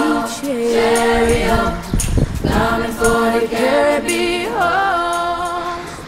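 Background music with sustained, choir-like sung notes, each held for about a second, some wavering.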